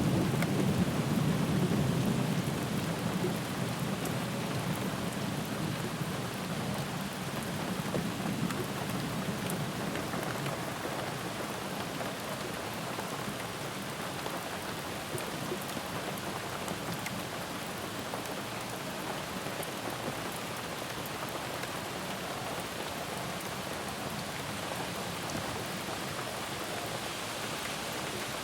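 Steady rain falling, an even hiss of drops, with a low rumble of thunder dying away over the first few seconds.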